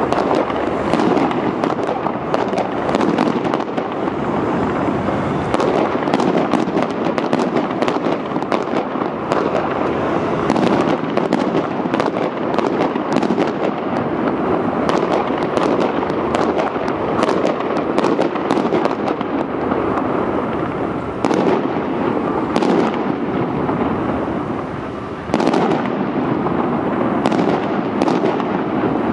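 Fireworks display going off: a continuous rumble of booms under rapid crackling bangs. The bangs thin out after about twenty seconds, and a sudden louder burst comes near the end.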